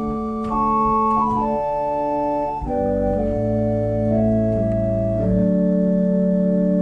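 Organ playing slow, held chords that change every second or two, with a deep bass note sounding through the middle.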